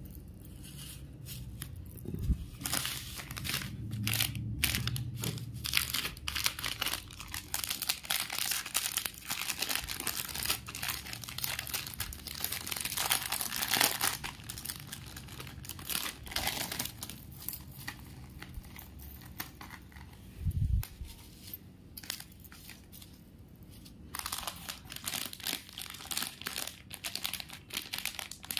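Clear plastic jewellery sachets and bubble wrap crinkling and rustling in irregular bursts as they are handled and opened, with one low thump about two-thirds of the way through.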